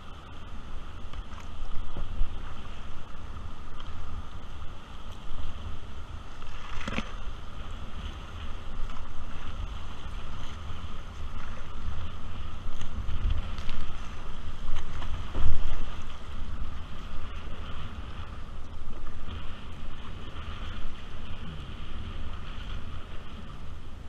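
Wind buffeting an action camera's microphone over the rush of a shallow river running over stones and the splash of kayak paddle strokes. A single sharp knock about seven seconds in.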